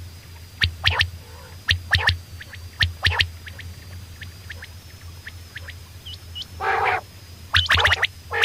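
Common quail calling: short, sharp notes in quick groups about once a second, with fainter notes between them. A longer, harsh call comes a little before the end, followed by a rapid run of notes. A faint steady high whine and a low hum lie underneath.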